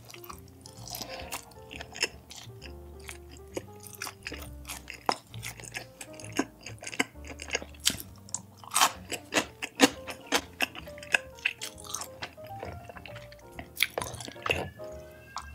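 Close-miked chewing of food, many short sharp clicks spread irregularly throughout, over background music with a stepping melody and bass.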